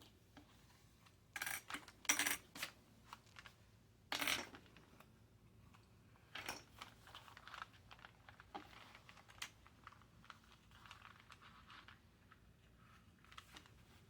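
Paper and thread handling while hand-sewing a pamphlet stitch in a journal: a few short rasps and rustles of thread drawn through the paper, the loudest around two and four seconds in, with small clicks and handling noises between.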